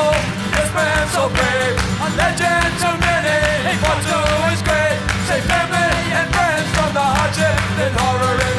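Rock song with a male-sounding sung vocal over a steady drum beat and guitar.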